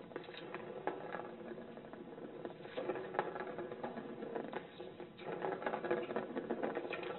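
A plastic ball rolls around the track of a cat's circular ball-track toy as the cat bats it. It makes a continuous rattling rumble, broken by frequent clicks where the ball knocks against the track or the paw.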